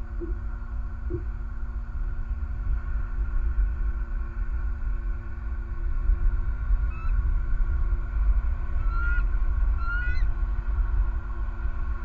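Wind rumbling on an outdoor nest-cam microphone, with a few short, high bird call notes about seven, nine and ten seconds in.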